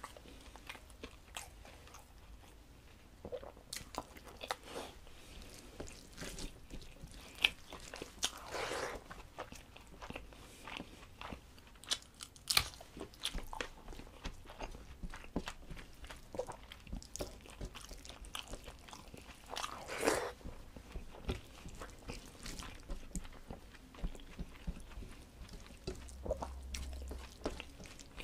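A person chewing and biting a hand-eaten meal of rice, curry and egg, with wet mouth sounds and crunching, among short clicks of fingers working the food on a steel plate.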